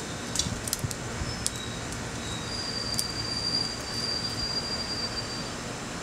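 Sparrows at a seed feeder giving short, sharp chirps, most of them in the first second and a half, over a steady background hum. A thin, high, steady whistle holds for about three seconds in the middle.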